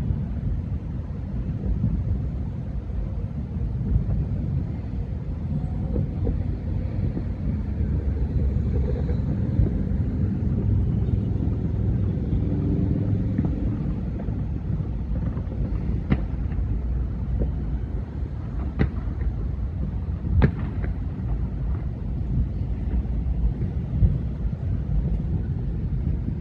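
Thousands of distant fireworks going off all around, merged into one continuous low rumble like rolling thunder. Three sharper cracks from nearer fireworks stand out about two-thirds of the way through.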